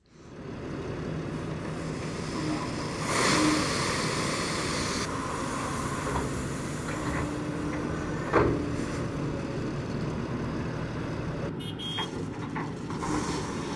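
Large excavator's diesel engine running steadily as its bucket dumps shelled corn into a grain trailer. A rushing hiss from the pouring grain swells for about two seconds, starting about three seconds in, and a single sharp knock comes about eight seconds in.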